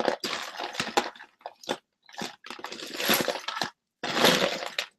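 Loose jewelry clattering and rustling in irregular bursts as a hand rummages through a pile of it, searching for the matching earring. The loudest stretch comes about four seconds in.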